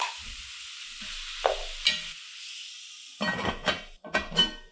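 Diced bacon, meat and chorizo sizzling in a hot pot, with a couple of wooden-spoon knocks as more bacon goes in. About three seconds in the lid goes on the pot, clanking twice with a ringing metal sound.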